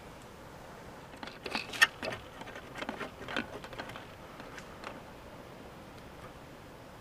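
Light clicks and scrapes as a surge protector is fitted into the knockout hole of a metal combiner box and its wires are pulled through. The sharpest click comes about two seconds in, and the handling noise dies away after about five seconds.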